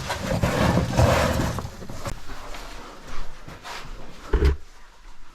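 A caver squeezing through a tight rock crawl: body and clothing scraping and shuffling over rock, with a few short knocks and a low thump about four and a half seconds in.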